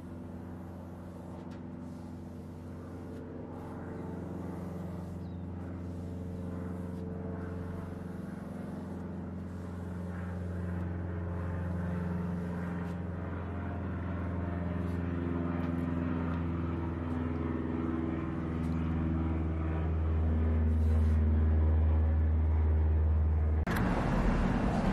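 Steady low motor drone with several pitched tones that waver slightly, slowly growing louder and cutting off suddenly about a second before the end.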